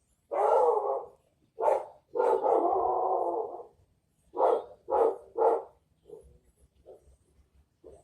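Six loud barks, short ones at first, a long drawn-out one about two seconds in, then three quick barks in a row about a second apart.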